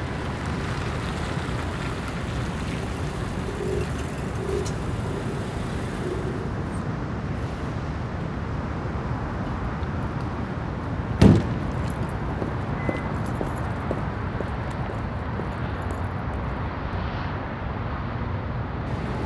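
Steady low rumbling background noise, with one sharp knock about eleven seconds in.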